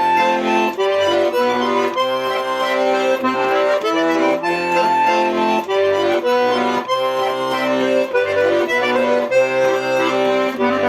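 Instrumental break of a song: sustained chords and melody lines moving in steps over a steady beat, with no singing.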